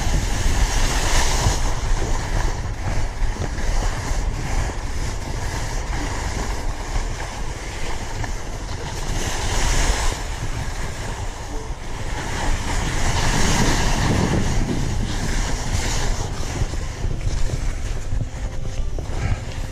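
Wind rushing over an action camera's microphone while skiing downhill, mixed with skis hissing and scraping over granular spring corn snow; the noise swells in several surges, as on faster turns.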